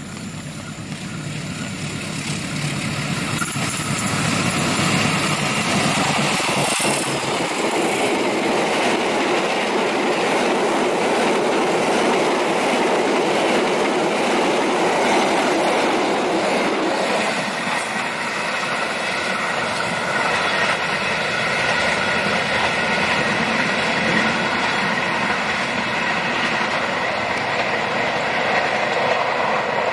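Indonesian passenger train passing close by. The diesel locomotive's engine grows louder over the first few seconds, then the long line of steel coaches runs past with a steady rush of wheels on rail and clickety-clack over the rail joints.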